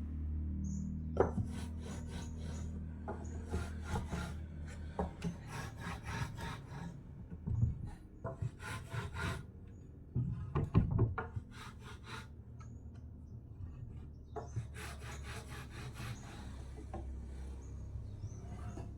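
Rapid back-and-forth rubbing strokes of a hand tool on wood, like filing or sanding, coming in several bursts separated by short pauses.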